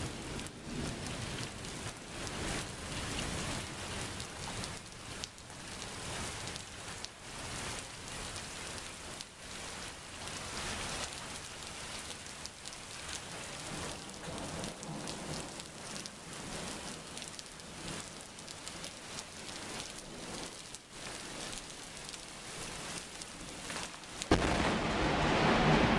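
Steady rain falling in a thunderstorm, with many small ticks of drops through the hiss. About 24 seconds in it suddenly gets much louder, a dense rush of heavier rain.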